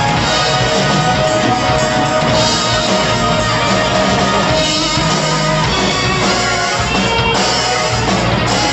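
Rock music played by a band, with guitar and drums.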